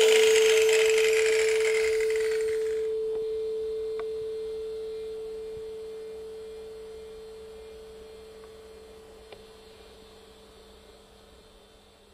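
Tuning fork on a wooden resonance box ringing after a mallet strike: a single pure, steady tone that fades slowly and evenly. Higher, brighter ringing above it dies away about three seconds in.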